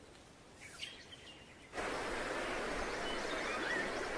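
Outdoor nature ambience, very faint at first with a few light chirps. About two seconds in, a steady, even rushing hiss cuts in suddenly, with a few short rising bird whistles over it.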